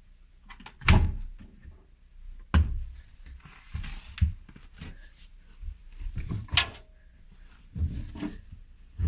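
Whirlpool washing machine in its main wash, the drum turning with laundry and water sloshing and thudding inside it. A dull thud comes every second or two over the machine's low running hum.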